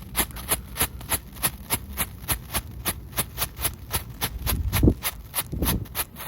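World Class Fireworks strobe pop firing: a rapid, even string of sharp little pops, about five a second. A low thud stands out near the five-second mark.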